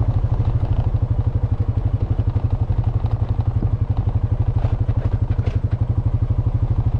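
Honda FourTrax Foreman ATV's single-cylinder four-stroke engine running steadily under way at cruising speed, with a fast, even exhaust beat.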